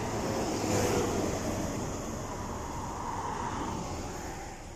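Steady road noise inside a moving car at highway speed: the even rush of tyres and wind, a little louder about a second in, then easing slightly.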